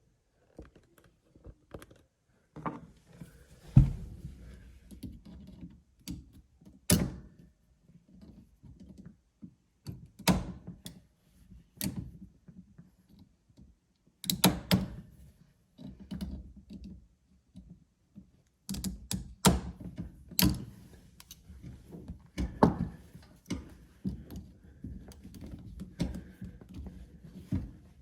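Irregular clicks, clinks and knocks of hand tools working a hose clamp off a dishwasher's drain hose, with a few louder thuds and short quiet pauses in between.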